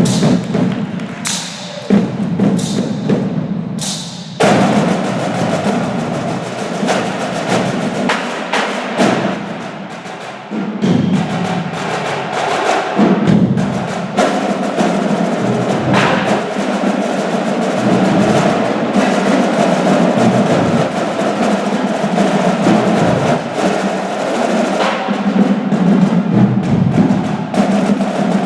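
Student percussion ensemble playing drums together: several sharp accented hits in the first four seconds, then steady, dense drumming.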